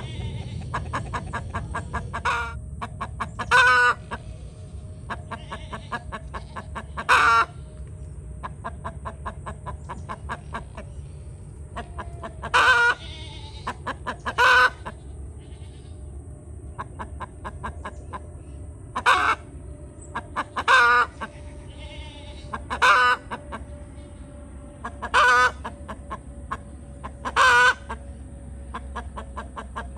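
Backyard chickens, a rooster with hens, clucking: about eleven short, loud calls a few seconds apart, with soft quick clucks in between.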